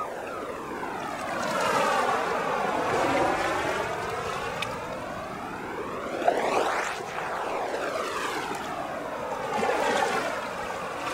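A rushing, whooshing noise with a sweeping, jet-like flanging quality that swells and fades in slow cycles about every four to five seconds.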